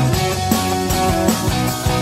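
Background music: a rock-style track with guitar over a steady drum beat.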